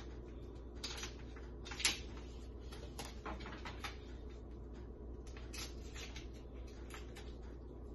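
Scattered small clicks, taps and rustles of hands working with food and kitchen things, the sharpest click about two seconds in, over a steady low hum.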